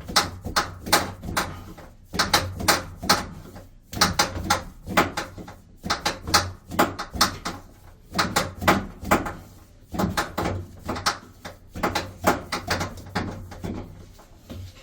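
A fast, irregular series of knocks and clatters, two to four a second, over a low steady hum.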